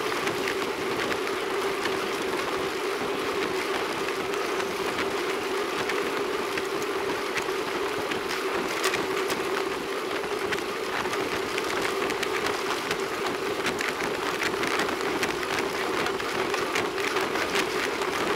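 Riding noise from a moving road bike, picked up by a rear-facing camera on the bike: a steady rush of tyres rolling on asphalt and wind, with a constant hum and frequent small rattles and clicks.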